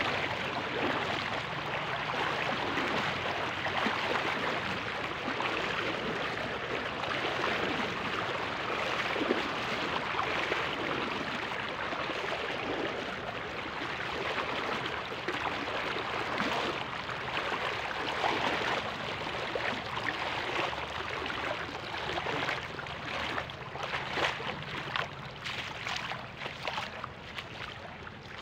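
Shallow, fast-flowing stream running over lahar sand and stones: a steady rush of water, with irregular splashing that comes more often near the end.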